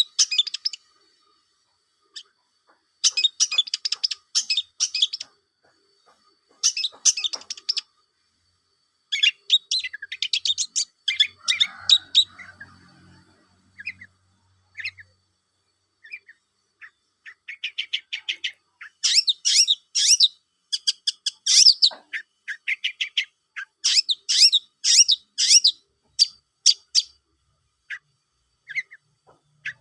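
Long-tailed shrike (cendet) singing: repeated bursts of fast, high, scratchy chattering trills, each a second or two long, with short pauses between them and the busiest run in the second half.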